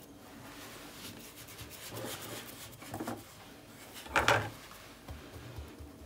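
Hands rolling and pressing a log of semolina dough on a countertop: soft rubbing strokes, the loudest one about four seconds in, followed by a few faint dull thuds.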